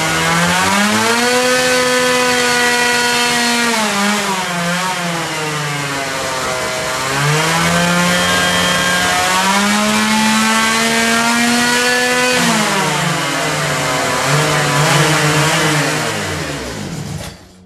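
Chainsaw's two-stroke engine revving up, holding at high speed and dropping back, three times over, then cutting off suddenly near the end.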